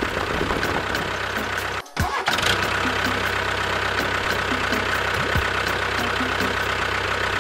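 A tractor engine running steadily, briefly cut off about two seconds in and then running on.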